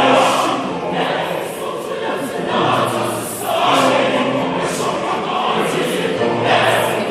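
A choir singing a gospel song, several voices together in continuous phrases.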